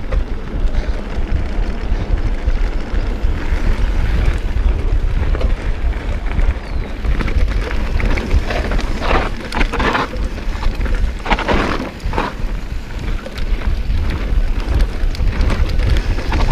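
Wind buffeting an action camera's microphone and tyres rumbling over a dirt trail during a fast e-mountain-bike descent, a loud, steady rumble. A few louder bursts come about nine to twelve seconds in.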